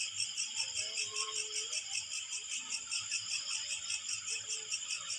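Night insects, crickets, chirping in a steady, even trill of rapid pulses. A faint pitched sound glides briefly about a second in.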